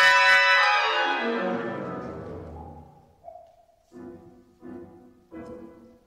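Piano and chamber ensemble playing modern classical music: a loud, bright chord struck just before fades over about three seconds under a falling run, then three short chords come about two-thirds of a second apart near the end.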